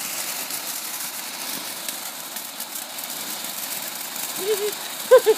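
Lit ground firework burning with a steady hiss and faint crackle as it throws sparks. A voice is heard briefly near the end.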